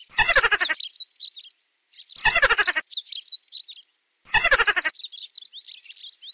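Mouse squeaking sound effect on a loop: three bursts of rapid chattering squeaks about two seconds apart, each trailing off into thin high chirps.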